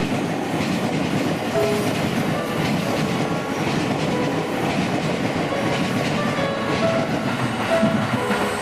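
Tokaido Line electric train passing, its wheels making a steady rumble and clatter on the rails.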